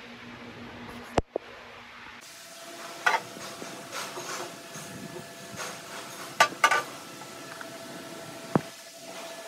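Metal parts knocking and clinking against one another and the steel machine table, a sharp click about a second in and then several short knocks, over a faint steady tone.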